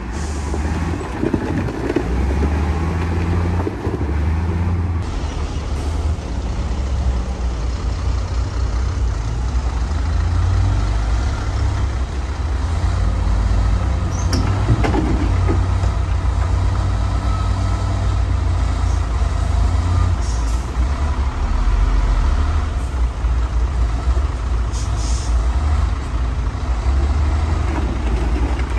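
Heavy diesel engines of dump trucks and a bulldozer running and working, a steady deep rumble that swells and eases, with a few short high hisses.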